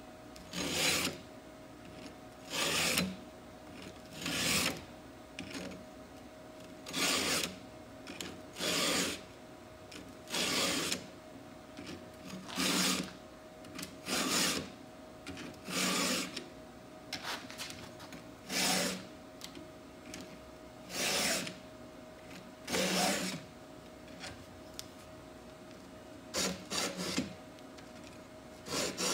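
Stihl 2-in-1 chainsaw file rasping across the cutters of a saw chain, one push stroke every one and a half to two seconds, in sets of about three strokes per tooth. Each stroke sharpens the cutter and files down its raker (depth gauge) at the same time.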